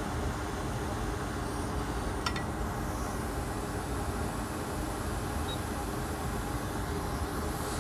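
Hot air rework station blowing a steady rush of hot air onto the board, melting the leaded solder under the BIOS chip so it can be lifted off, with a single light click about two seconds in.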